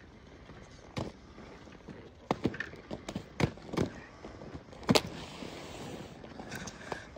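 A string of irregular hard knocks and clatters, bunched between about two and four seconds in, with the loudest one about five seconds in.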